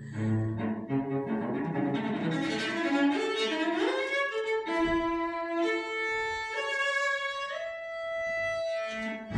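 Cello and double bass duo playing chamber music with the bow. The low notes drop away after the first second, leaving a single high bowed melody that slides upward about four seconds in and then moves in longer held notes.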